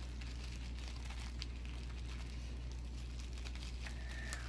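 Faint crinkling of a thin plastic bag being opened and handled to free a squishy toy stuck inside, with a few small sharp ticks over a steady low hum.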